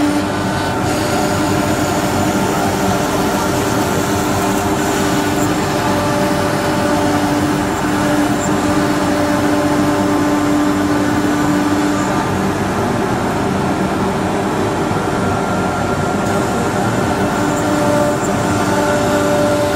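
1325 CNC router with a 5.5 kW water-cooled spindle, cutting cabinet parts out of board as the head travels along its cut path. A loud, steady machine noise with a humming tone that fades in and out.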